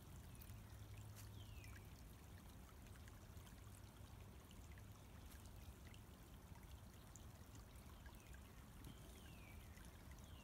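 Faint steady trickle of a shallow woodland creek running over leaves and mud, with a few short high whistles falling in pitch, one about a second in and three near the end.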